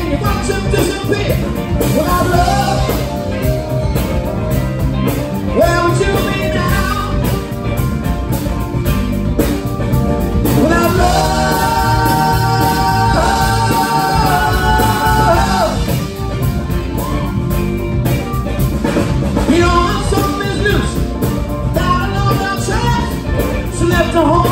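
A live rock band with drums, electric guitars and keyboard playing a driving groove, with a harmonica played into the vocal mic over it. About 11 seconds in, the harmonica holds long chords for several seconds, then drops back into shorter phrases.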